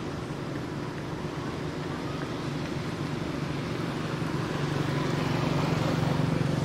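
A motor vehicle's engine running with a steady low hum that grows louder near the end.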